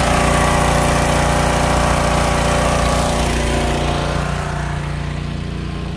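Gas-engine pressure washer running steadily and super loud just after being started. It gets a little quieter over the second half.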